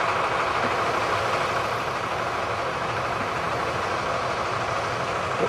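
Steady drone of harvest machinery at work: combine harvester and tractor engines running, with a faint steady whine.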